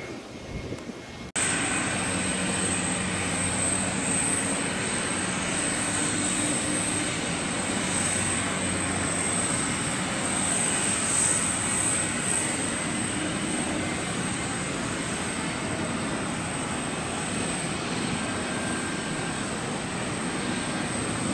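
Airbus A380 with four Rolls-Royce Trent 900 jet engines on final approach, gear down: a steady jet engine noise with a high, even whine on top, cutting in suddenly about a second in.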